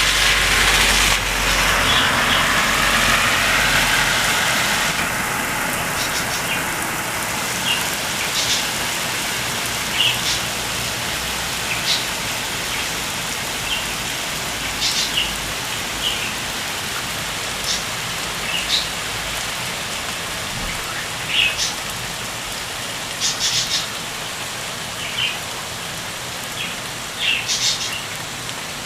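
Heavy rain pouring down with a steady hiss. A vehicle passes at the start and fades over the first few seconds, and short high bird chirps sound now and then through the rain.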